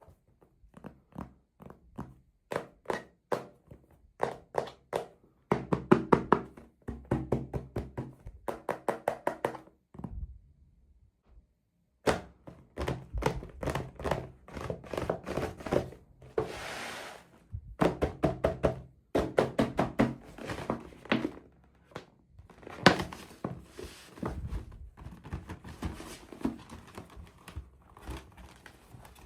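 Hands handling small plastic toys and packaging during an unboxing: quick runs of clicks, taps and light knocks, with a pause near the middle and a brief rustling hiss a little past halfway.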